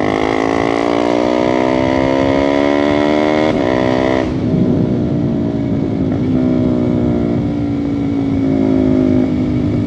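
KTM RC250's single-cylinder four-stroke engine pulling under acceleration, its pitch rising steadily for about three and a half seconds. About four seconds in the pitch drops with a gear change, and the engine then runs on at a steadier cruise, with wind rushing over the microphone.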